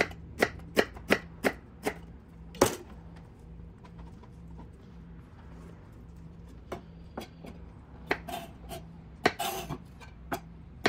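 Kitchen knife chopping vegetables on a cutting board. Sharp, irregular strikes come in a quick run, then pause for a few seconds before a second run.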